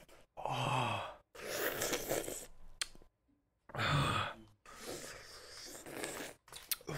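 A man sighing and groaning in pain, several heavy breaths pushed out through the mouth, two of them voiced as low groans, from the burn of an extremely hot chili gummy bear.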